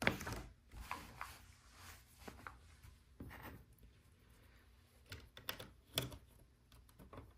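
Plastic LEGO bricks being handled and pressed onto a baseplate: scattered clicks and taps with some rubbing, including a sharp knock right at the start and another about six seconds in.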